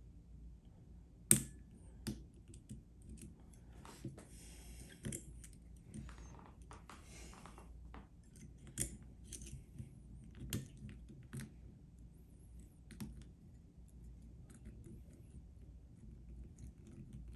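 Lock pick and tension tool working the pin stack of a PacLock 90A padlock: faint scattered clicks of metal on metal, the sharpest about a second in, and two brief scrapes of the pick in the keyway. The lock has security pins, such as spools.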